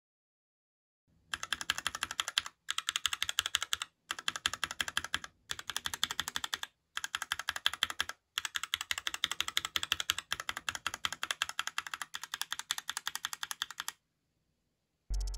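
Keys on a mechanical keyboard with red linear switches being typed quickly in runs of rapid clacks with short pauses between them, a sound test of the keycaps. The typing starts about a second in and stops shortly before the end.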